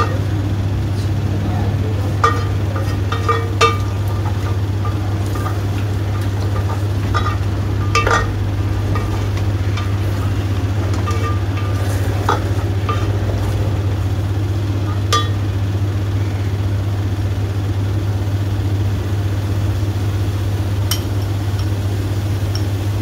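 Spatula stirring chicken and masala in an aluminium cooking pot: scattered scrapes and knocks against the pot over a steady sizzle and a constant low hum.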